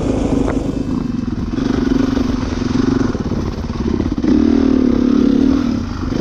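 Motocross dirt bike engine running under throttle on a rough trail, heard close up from the rider's own bike. The engine note rises and falls with the throttle, revving higher and louder about four seconds in, then easing off near the end.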